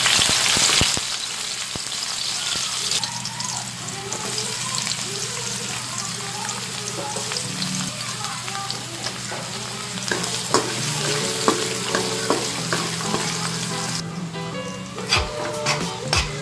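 Chopped onion frying in hot oil in a wok: a loud sizzle as the pieces hit the oil, easing after about a second into a steady sizzle. From about ten seconds in, a spatula scrapes and knocks against the wok as it stirs.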